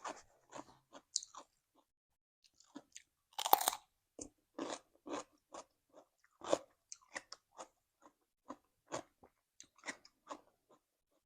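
Close-up chewing and crunching of cucumber salad with rice noodles and fried beef, in irregular short bites, with one louder crunch about three and a half seconds in.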